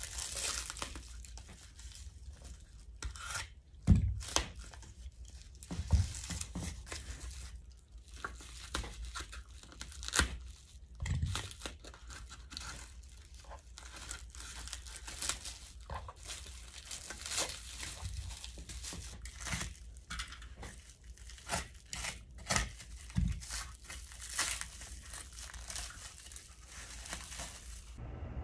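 Cardboard and clear plastic packaging being torn and pulled off a curtain track's splice joints, with repeated ripping and crinkling and a few dull knocks, the loudest about four seconds in.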